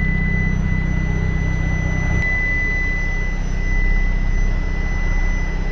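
Isuzu 4HK1 four-cylinder diesel engine of a 2019 Isuzu F-series truck idling, heard from inside the cab. A steady thin high tone sits over the low engine hum, and the hum changes a little about two seconds in.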